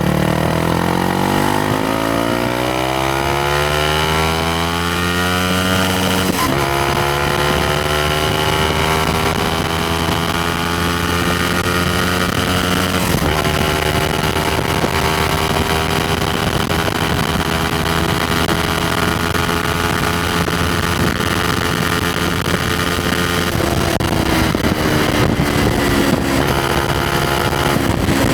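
Yamaha MT-125's single-cylinder four-stroke engine and exhaust under way on a ride. The revs climb for about six seconds, drop at an upshift, and shift again a few seconds later. The engine then holds a steady cruise and eases off near the end.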